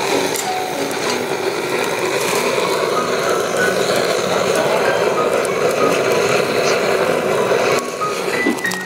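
Hand-held gas cartridge torch (Snow Peak Folding Torch) blasting its flame into a cast-iron Dutch oven to burn off old stuck-on oil, a steady loud rush that cuts off near the end.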